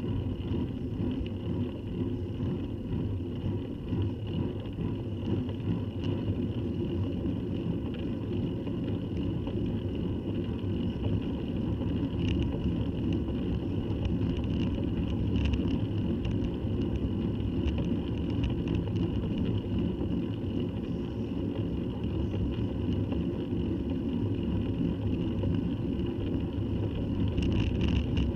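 Steady road rumble and wind noise picked up by a bicycle-mounted camera riding up a rough tarmac lane, with a faint steady high hum and a few light ticks.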